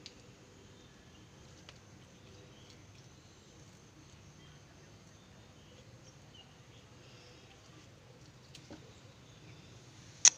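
Quiet outdoor ambience with faint bird or insect chirps and a few soft clicks, then one sharp, loud click just before the end.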